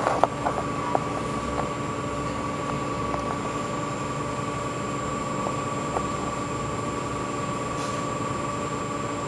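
Steady machine hum over a hiss, holding two even tones without change, with a few faint clicks in the first second.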